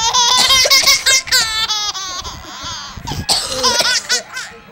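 A baby laughing hard in repeated high-pitched runs of laughter, set off by its mother's coughing.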